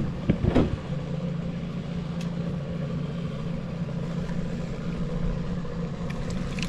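Boat motor idling steadily in neutral, with a few brief knocks in the first second.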